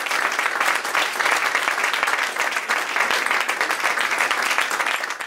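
Audience applauding steadily, many hands clapping at once, then cutting off abruptly at the end.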